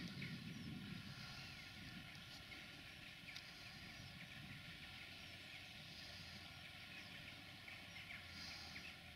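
Faint rural ambience: the low hum of a distant tractor engine under the scattered chirping of small birds.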